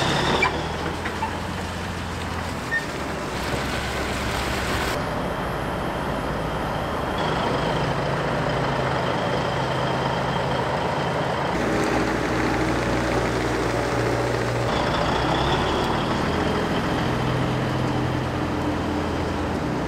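Semi truck diesel engine running at low speed while the truck manoeuvres slowly. The engine note steps to a different pitch a few times.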